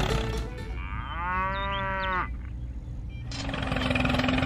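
A cow mooing once, a single call of about a second and a half that rises at the start and then holds. About three seconds in, a steady engine hum begins.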